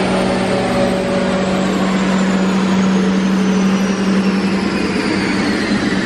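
S197 Mustang running flat out on a chassis dyno, its engine note held at one steady pitch as the car sits on its speed limiter. A thin high whine slowly falls in pitch over it.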